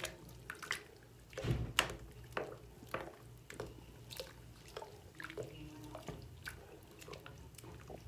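Water dripping into a sink full of water: irregular drops and small plops, roughly two a second, with one heavier plop about a second and a half in.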